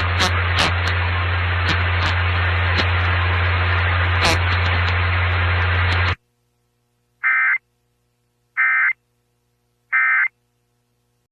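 Radio static with a low hum and scattered crackles for about six seconds, cut off abruptly. After a pause come three short, identical bursts of warbling Emergency Alert System data tones about a second apart: the End of Message code that closes the EAS Required Monthly Test.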